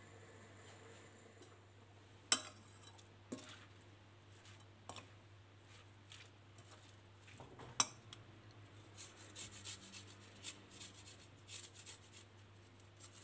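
A metal spoon tossing shredded cabbage and carrot in a bowl, with two sharp clinks against the bowl. Near the end, quick scraping strokes of a small hand grater over the salad.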